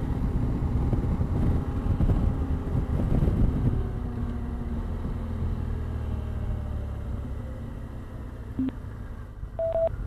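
BMW motorcycle riding at road speed with wind rush on the microphone, then slowing down: the engine note drops a little and the wind noise eases off over the second half. Two short beeps near the end.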